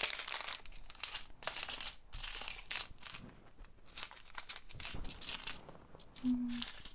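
Small clear plastic bags of diamond-painting drills crinkling as they are picked up and sorted by hand, in a run of irregular rustles.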